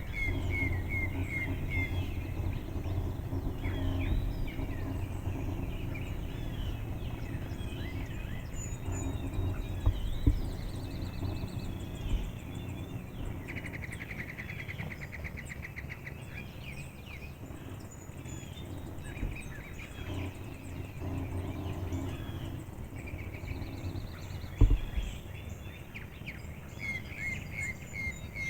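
Wild songbirds calling and chirping, with one rapid trilled song in the middle, over a steady low rumble. Two sharp knocks stand out, one about a third of the way in and one near the end.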